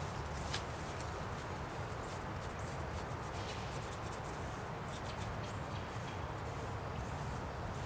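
Paintbrush dabbing and scraping on a painted wooden panel, scattered soft scratchy ticks over a steady outdoor background hum.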